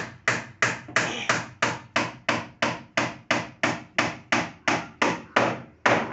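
Steady hammering, about three blows a second, each with a short ring: nails being driven into a plywood counter top on its wooden frame. The last blow comes after a slightly longer gap near the end.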